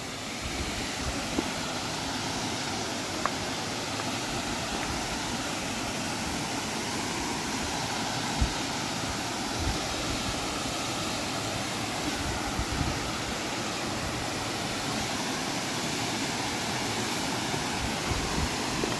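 Waterfall on a gorge brook rushing steadily, with a few light knocks about a second in, around three seconds in and about eight seconds in.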